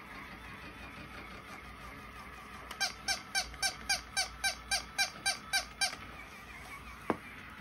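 Walking dog toy's electronic bark: a quick run of about a dozen short squeaky yips, about four a second, starting about three seconds in and lasting about three seconds. A single click follows near the end.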